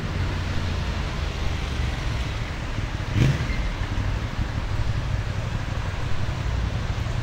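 Street traffic: passing cars with a steady low rumble, and one short thump about three seconds in.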